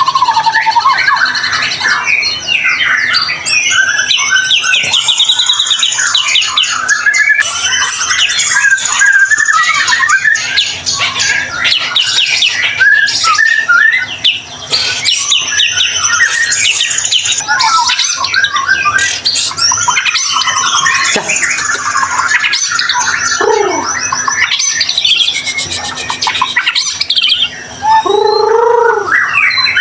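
White-rumped shama (murai batu) singing continuously: a fast, unbroken run of varied whistled glides mixed with rapid rattling notes.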